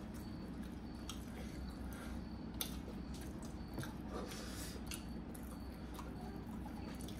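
People chewing and eating steamed momos, with scattered small clicks over a steady low hum.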